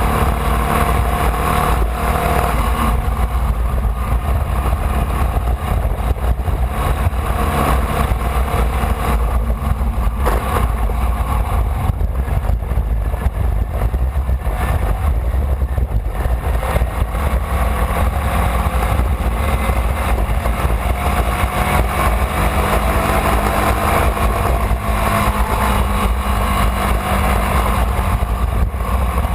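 A Formula Vee race car's air-cooled Volkswagen 1200 cc flat-four engine running hard at racing speed, its pitch slowly rising and falling with the throttle. Heavy wind rumble on the onboard microphone lies under it.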